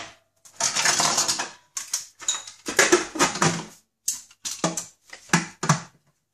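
Irregular clattering and scraping of a Krups Prep&Cook kitchen machine's steel mixing bowl and plastic lid being handled, as the lid is fitted and pressed into place on the bowl of dough ingredients.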